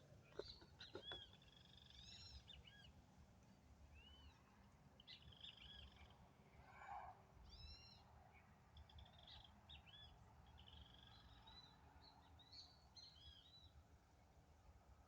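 Birds chirping and calling, many short arched notes repeating, over a low rumble. A few sharp clicks about a second in.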